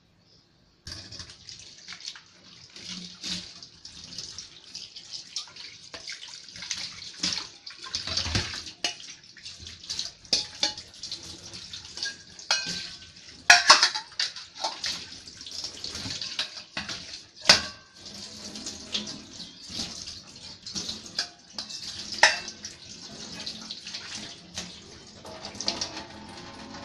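Tap water running into a stainless-steel sink as stainless-steel bowls are rinsed under it, starting about a second in. The bowls clink and knock against each other and the sink now and then, loudest about halfway through.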